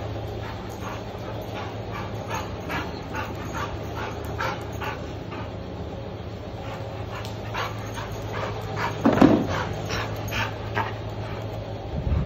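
American Staffordshire terrier whining and yipping in short, quick sounds while excited at play, with one louder bark about nine seconds in.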